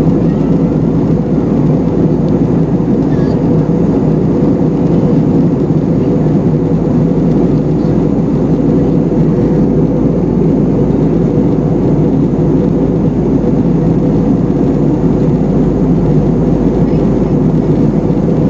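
Steady cabin noise of an Airbus A320-family jet airliner in flight, heard from a window seat: an even rush of airflow and engine drone with a steady low hum running through it.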